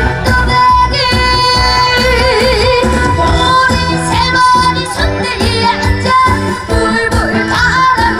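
Korean trot song sung by a young male singer, with vibrato on the held notes, over a full band backing.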